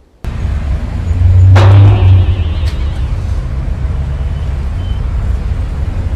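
Logo-ident sound effect: a deep rumble that cuts in suddenly and swells to a heavy low boom with a sharp ringing hit about a second and a half in, then carries on as a steady low drone.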